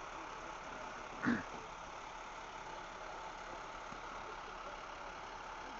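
A work truck's engine idling steadily in the background, with one brief sound falling in pitch about a second in.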